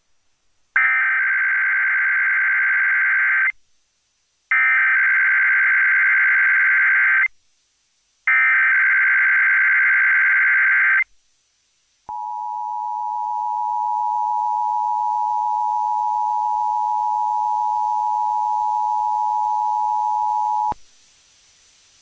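Emergency Alert System Required Monthly Test signals: three bursts of digital SAME header data, each about three seconds long with a short gap between. Then the two-tone attention signal (853 and 960 Hz together) is held steady for about nine seconds and cuts off abruptly.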